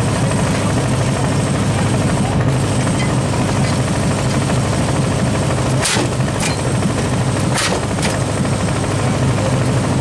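Explosion (frog) rammer firing: four sharp cracks in two pairs, about six and seven and a half seconds in, over a steady low rumble.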